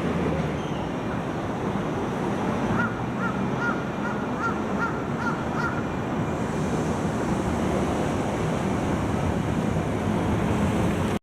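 Steady street traffic noise at a busy road and rail crossing. About three seconds in comes a quick run of about eight short chirping calls, close to three a second.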